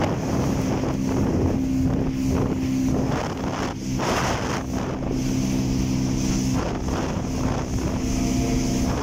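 Motorboat's 115 hp motor running steadily at speed, with wind buffeting the microphone and water rushing past the hull. Near the end a second, higher engine tone joins as a GSX 800 jet ski runs close alongside.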